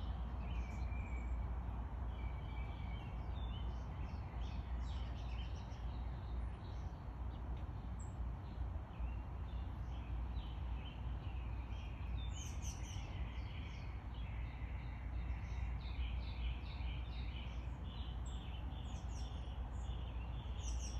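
Small backyard songbirds chirping, with many short calls, busiest in the second half, over a steady low outdoor rumble.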